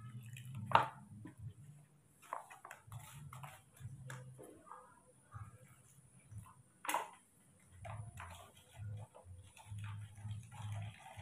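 Small taps and clinks of a spoon and plastic cups being handled while powdered milk formula is mixed with water, with two sharper knocks about a second in and about seven seconds in.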